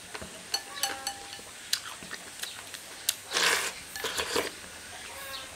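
Rice soaked in hot water being eaten straight from the bowl with chopsticks: chopsticks clicking against the bowl several times, then two longer slurps about three and a half and four seconds in.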